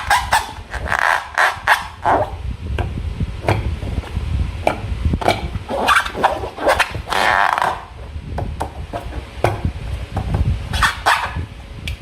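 Slime and balloon rubber being squeezed and handled by hand: a string of short wet squelches and sticky clicks, with longer squishes in between.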